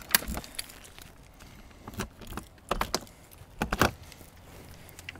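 Keys and the latch of a travel trailer's exterior compartment door clicking and rattling as the door is unlatched and swung open: a few sharp clicks at the start, then short clusters of clicks about two seconds in and again near four seconds.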